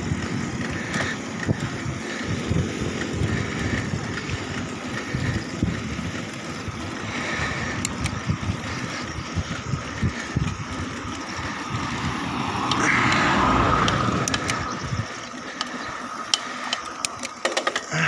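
Bicycle ridden uphill on a concrete road, with wind buffeting the microphone and the bike rattling. A louder hiss swells for a couple of seconds about two-thirds of the way in, and the low buffeting dies away soon after.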